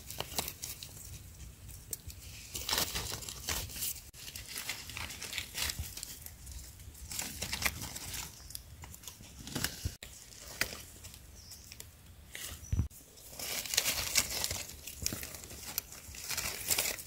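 Dry leaf litter and forest-floor debris rustling and crackling in irregular spells, with a few sharper cracks.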